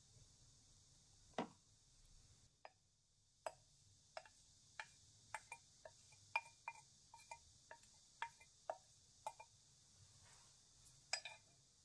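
Small stainless-steel mesh strainer being tapped and flicked to sift herb powder: a string of about twenty light, sharp clicks at irregular spacing, each with a faint metallic ring.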